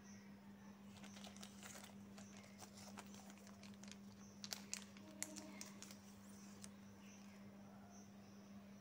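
Faint crinkling and crackling of a thin clear plastic sleeve being handled and pulled off a ballpoint pen, with a few sharper crackles around the middle. A steady low hum sits underneath.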